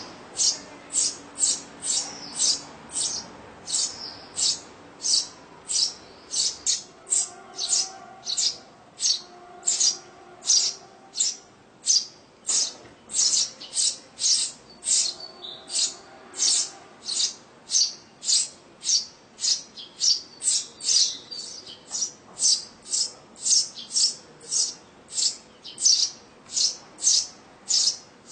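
House sparrows chirping: a steady run of short, high cheeps, about two a second.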